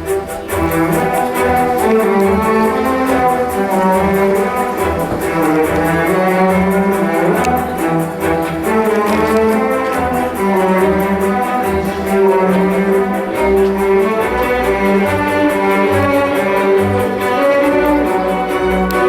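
Orchestral music led by bowed strings, cello and violin, playing a held, moving melody over a pulsing low bass.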